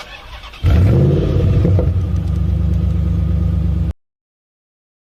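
Dodge Dakota engine starting. After a brief quieter moment it catches about two-thirds of a second in with a rising note, then settles into a steady idle, now running with a newly fitted throttle position sensor. The sound cuts off suddenly near the end.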